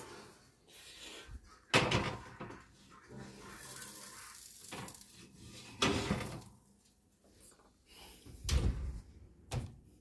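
Oven door and wire rack being handled: a few sharp knocks and clanks as the door is opened and the pie dish is slid onto the metal rack, then a heavier thump about eight and a half seconds in as the oven door is shut.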